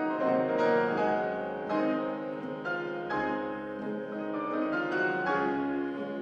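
Steinway concert grand piano playing a romantic classical passage, a flowing line of notes struck in quick succession.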